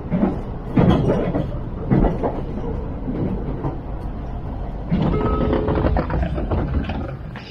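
Moving train heard from inside the carriage: a steady low running rumble with occasional knocks from the wheels and rails. A brief steady tone sounds about five seconds in.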